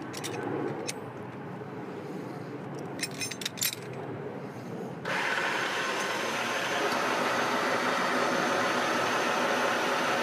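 Metal hardware clinking a few times as a strap is hooked to a steel drop weight, then about halfway a steady motor whir starts suddenly: a hoist motor lifting the 220-pound solid steel weight off the ground.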